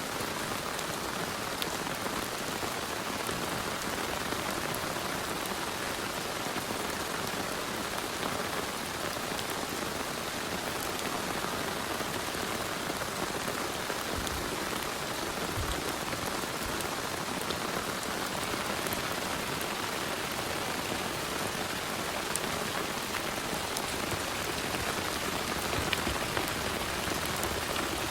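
Heavy rain falling steadily, a dense even hiss with sharp ticks of individual drops striking close by.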